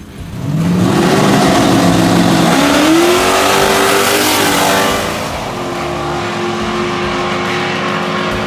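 Drag cars' V8 engines revving at the starting line, the pitch climbing twice, then launching at full throttle on the green, loudest about four seconds in. A steady high engine note holds as the cars run off down the strip.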